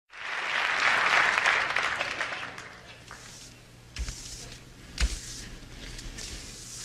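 Audience applause that starts at once and fades away over about three seconds, followed by two short thumps about a second apart, over a low steady hum.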